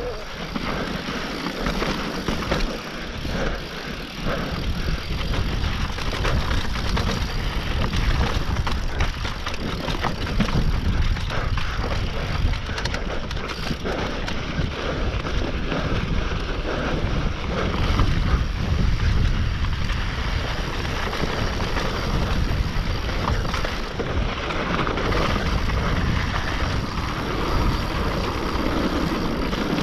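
Mountain bike descending a rough downhill trail at speed: wind buffeting the microphone over a steady rumble of tyres on dirt and rock, with constant rattling and clattering of the bike over bumps.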